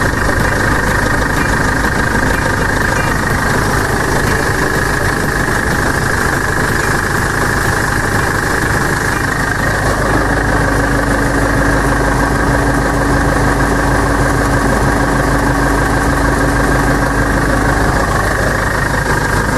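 2010 Ford Ranger running with its new driveshaft, centre bearing and universal joints turning underneath, a steady mechanical running sound with no growl: the driveshaft noise is cured. A steady hum joins about halfway through and drops out near the end.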